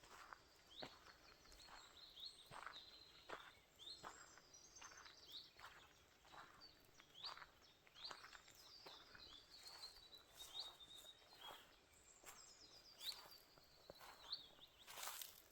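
Footsteps on a forest floor at a steady walking pace, with small birds chirping and trilling over them; all of it faint.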